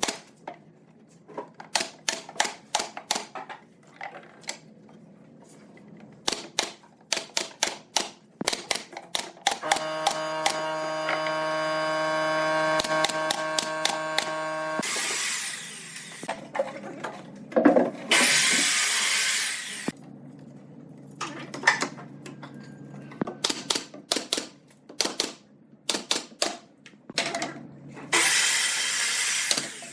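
Woodworking tool sounds: many sharp taps and knocks, a power tool motor running steadily for about five seconds in the middle, and several short bursts of hissing noise.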